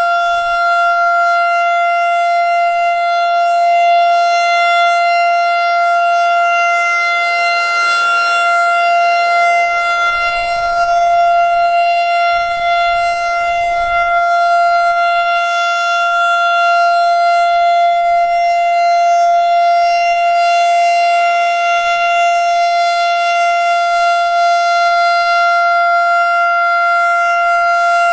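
Federal Signal STH-10 outdoor warning siren sounding its steady Alert tone: one loud pitch held without rising or falling.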